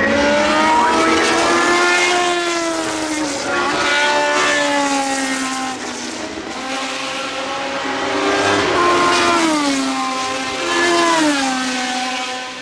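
Historic 1970s Formula One car engine at high revs, its pitch repeatedly climbing as it accelerates and then dropping as it lifts off through the corners, with quick falls in pitch near the end as it brakes and changes down.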